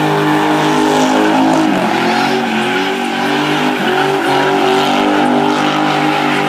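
A car engine held at high revs while its driven wheels spin in a smoky burnout, with a steady pitch that sags briefly about two seconds in before climbing back.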